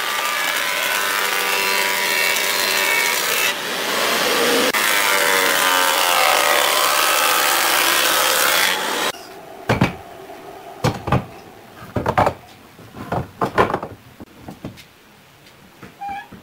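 Electric wood planer cutting a pine board, a loud hiss of shavings with a whine that wavers in pitch as the board feeds through; it stops abruptly about nine seconds in. A run of sharp wooden knocks and clacks follows, boards being handled on a workbench.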